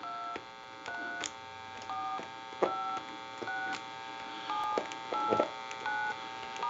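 Western Electric glow phone's touch-tone keypad dialing digits in sequence: about nine short two-tone DTMF beeps, roughly one a second, one for each key pressed, with a few soft clicks of the keys between them.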